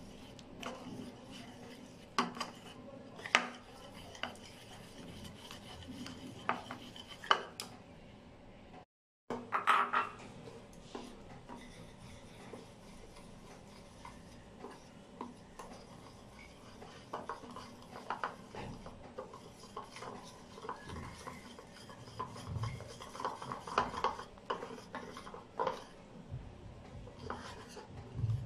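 A fork beating thick batter in a bowl: steady scraping and stirring, with irregular sharp clinks of the fork against the bowl. The sound cuts out for a moment about nine seconds in.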